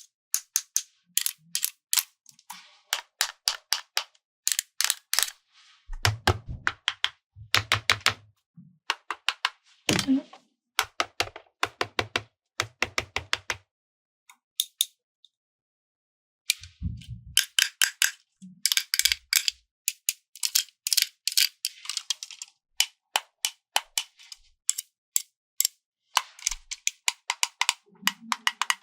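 Rapid runs of sharp clicks and taps from small plastic toy pieces being handled and snapped together, with a few duller knocks among them.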